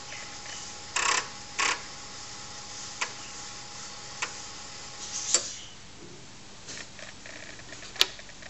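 Floppy disk drive reading a program from disk: two short buzzing head seeks about a second in, then single clicks spaced a second or more apart. A faint steady tone underneath stops about five seconds in.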